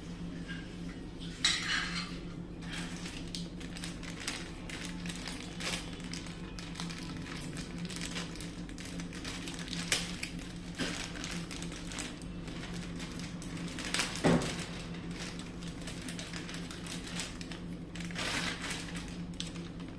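Small metal parts of a soldering iron stand being handled, with scattered light clinks and knocks, and a plastic bag crinkling about two seconds in and again near the end.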